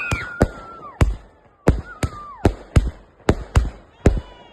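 Firecrackers going off in a fast, irregular series: about a dozen sharp bangs roughly a third to half a second apart, with a high wavering tone near the start.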